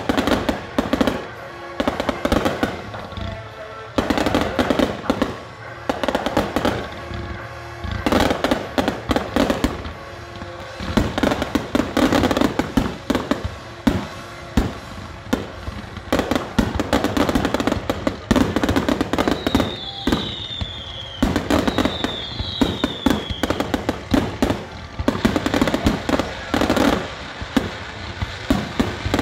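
Fireworks finale: a dense, continuous barrage of shell bursts, bangs and crackle firing in quick succession, with music playing underneath. Two short falling whistles sound about two-thirds of the way through.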